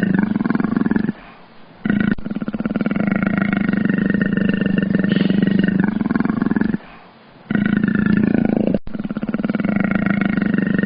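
A large animal's drawn-out rasping calls, each lasting several seconds, with two short breaks. The calls repeat in a near-identical pattern, as if looped.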